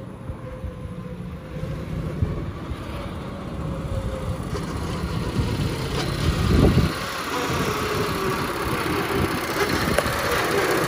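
Riding mud mower's engine running as the machine drives closer, growing steadily louder, with a brief low rush about two-thirds of the way through.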